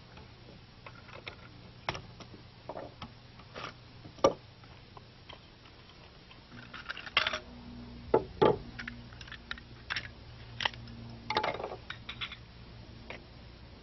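Scattered clicks, knocks and light metallic clatter of a semi-automatic rifle being handled and taken apart to swap its wooden stock for a plastic one.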